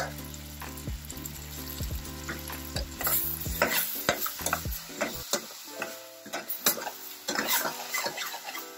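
A metal spoon stirs diced raw plantain, yellow cucumber and tomato in a stainless steel pot, clicking and scraping against the sides, while the vegetables sizzle over the gas flame. A low hum underneath stops about five seconds in.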